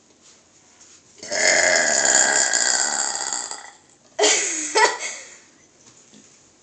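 A long, loud burp lasting about two and a half seconds. About half a second later comes a shorter burp whose pitch drops.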